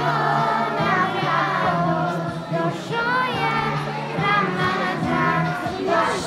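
Children's choir singing a Bosnian Ramadan song over a backing track with held bass notes.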